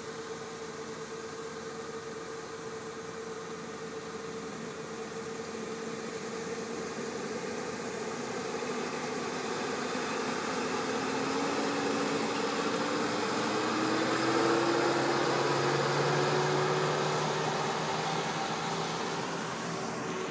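A van-type ambulance's engine driving past, slowly rising in pitch and growing louder to a peak about two-thirds of the way through, then easing off. Beneath it is a steady engine hum from the idling vehicles, which fades about halfway.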